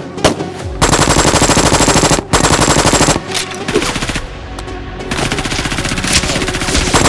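Rapid automatic fire in several bursts of fast repeated shots over background music.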